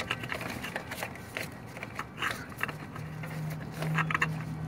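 Light scrapes and clicks of the air cleaner housing being fitted back over the carburetor, with a small cluster of sharper knocks near the end. A low steady hum comes in about three seconds in.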